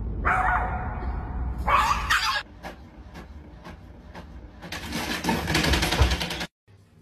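A small dog whining and yipping in a high pitch for about two seconds. Then an Epson inkjet printer runs a print job: a series of sharp clicks, then a rattling whir as it feeds paper out, with a thump near the end, before the sound cuts off suddenly.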